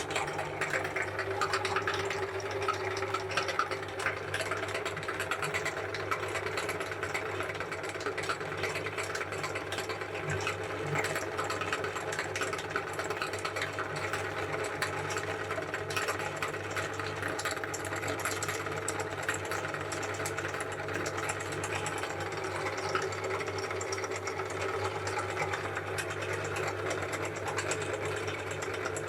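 Electric meat grinder motor running with a steady hum, with a continuous fine crackle of a frozen ice cream cone being ground.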